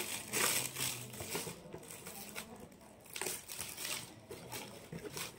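Shiny gift-wrapping paper crinkling and rustling in short, irregular spells as it is pulled open and off a boxed present.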